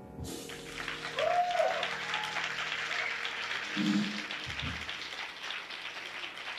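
Audience applause breaks out just after the start over the last of a piano chord dying away. A couple of short cheers rise above the clapping.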